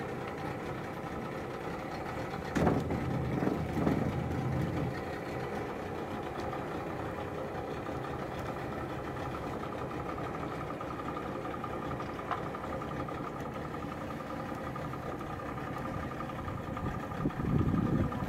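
Boat engine idling steadily, broken by a brief louder noise about three seconds in and again near the end.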